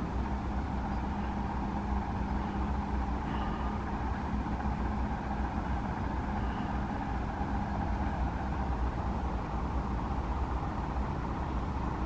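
Steady low background rumble with a faint even hum, and a few faint short high-pitched sounds, one a little after three seconds in and one near six and a half seconds in.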